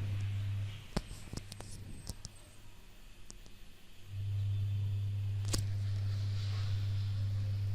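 Computer mouse clicks, a few in the first two seconds and one sharper click about five and a half seconds in, over a low steady hum that drops out just under a second in and comes back about four seconds in.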